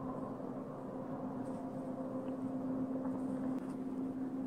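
A steady low hum from an unseen distant source, holding one low tone with fainter higher tones above it, which the man recording it likens to a factory at work. A faint tick about three and a half seconds in.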